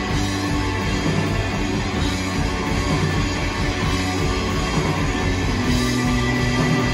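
Live indie rock band playing an instrumental passage: electric guitars, bass guitar and drum kit, steady and loud, with no singing.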